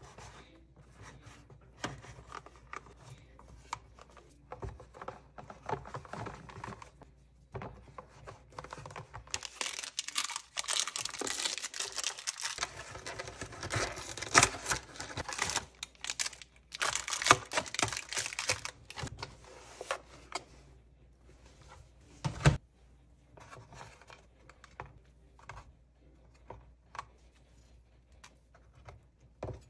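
Plastic-wrapped snack bars crinkling as they are handled, densest through the middle, with small clicks and taps of plastic lunch containers around it and one sharp knock about three quarters of the way through.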